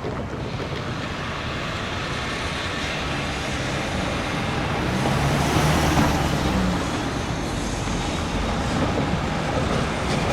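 Road traffic noise: a steady rush of passing cars, with one vehicle's engine hum and tyre noise growing loudest about halfway through, then easing off.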